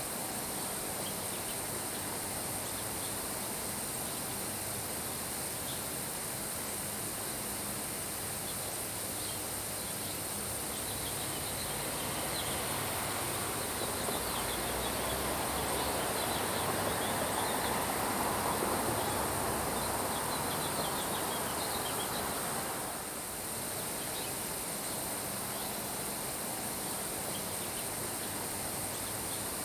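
Steady summer rain shower hissing down on grass. Wind swells over it through the middle, rising to a peak and fading away again, and faint high ticks sit in the background.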